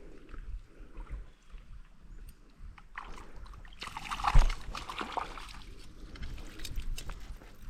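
River water trickling and sloshing, with a louder splash about four seconds in that ends in a dull bump.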